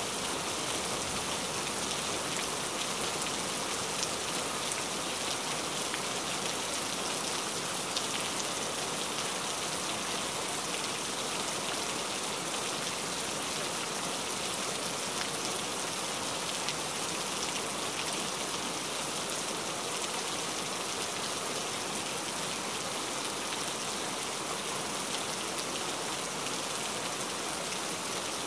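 Steady rain falling: an even hiss with a few sharper drop ticks here and there.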